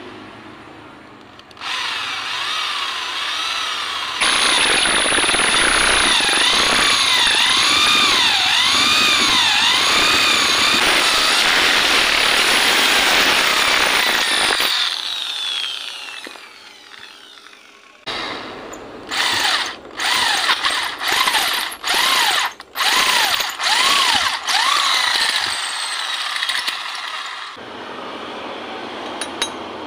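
Electric hand drill boring into the welded-up aluminium oil drain bolt boss of a motorcycle crankcase to make the hole for a new thread. The motor's whine wavers up and down under load for about ten seconds and then fades, and past the middle the drill runs in a string of short trigger bursts.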